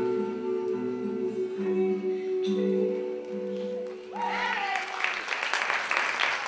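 The last held notes of a slow song die away, then an audience breaks into cheering and applause about four seconds in.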